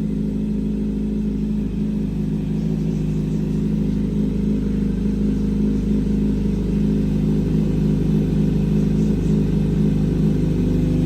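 Kawasaki Z900 inline-four motorcycle engine running steadily through its exhaust, growing slowly louder.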